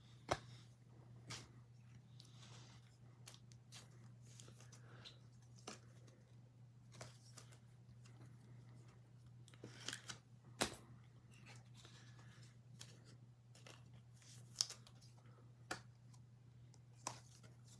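Faint handling of trading cards and packs: scattered small clicks, taps and rustles, a little louder about two-thirds of the way through, over a steady low hum.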